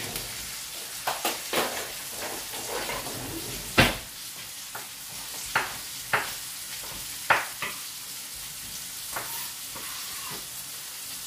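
Sea bass fillets frying in a pan, a steady sizzle throughout. Over it come scattered sharp knocks of a knife on a wooden chopping board as fresh coriander is cut, the loudest about four seconds in.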